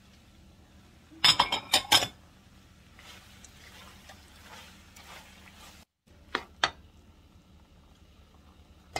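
Silicone spatula knocking and scraping against a cooking pot as spinach and pasta in sauce are stirred: a quick cluster of clinks about a second in, softer stirring in the middle, and two more knocks a little past the middle.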